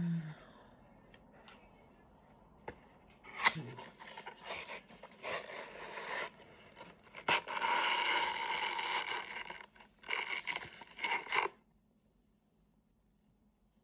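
Packaging being handled and opened by hand: irregular scraping, rustling and tearing in bursts, with one longer scraping stretch in the middle, then near silence for the last couple of seconds.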